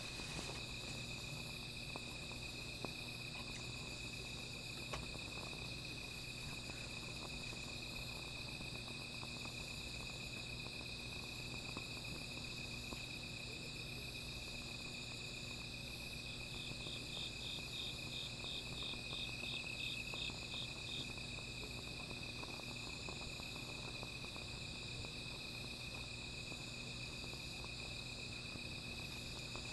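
Crickets trilling steadily in one continuous high trill. A second insect chirps in an even series of about three pulses a second for several seconds past the middle. Faint small crackles, as from a small fire, sit underneath.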